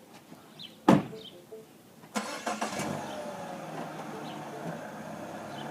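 A single sharp knock about a second in, then a steady mechanical running noise that starts suddenly about two seconds in, with faint high chirps in the background.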